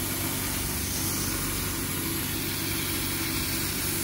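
CO2 laser cutting machine running during a cut into plywood: a steady low hum with a hiss on top.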